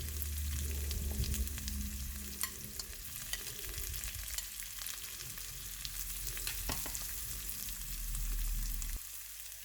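Chopped onion sizzling in hot oil with tempering seeds (mustard, cumin, fennel) in a pan: a steady hiss with scattered small pops and crackles.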